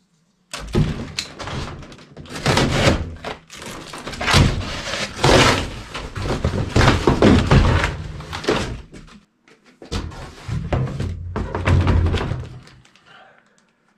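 Cardboard being ripped and torn open from a long shipping box, with dull thumps as the flaps are pulled back. It stops briefly about two-thirds of the way through, then resumes and trails off near the end.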